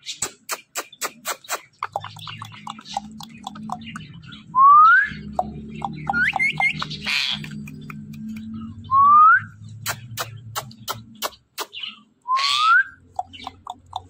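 Caged ringneck parakeet giving rapid runs of sharp clicks and three short, loud rising whistles, with some harsh chatter in between. A low steady hum runs underneath.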